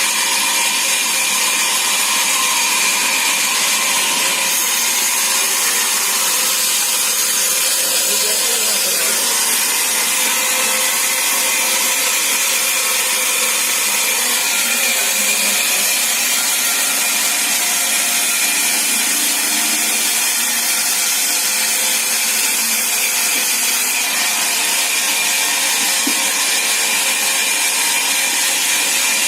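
Sawmill saw running and cutting through timber: a loud, unbroken mechanical noise with a steady high whine.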